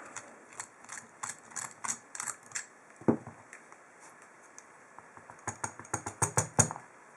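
Quick runs of small metallic clicks and taps from lock tools working on a chromed brass ASSA 2 padlock, in two bursts, with a heavier knock about three seconds in.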